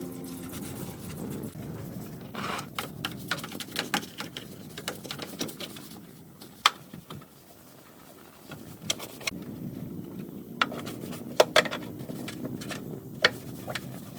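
Irregular sharp clicks and knocks, some in quick clusters, over a low steady rumble.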